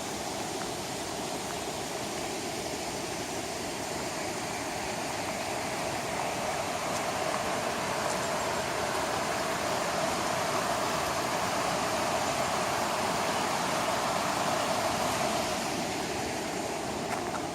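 Mountain stream rushing over rocks, a steady sound of running water that grows somewhat louder through the middle.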